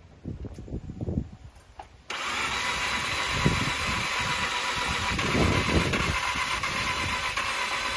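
A few low thumps, then about two seconds in a 2005 Mazda RX-8's rotary engine starts cranking on the starter motor and keeps cranking steadily without catching: the car's crank-but-no-start fault.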